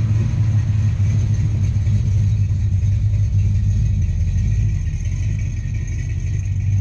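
A classic Chevrolet Chevelle muscle car's engine running with a steady, deep low sound as the car rolls slowly past close by.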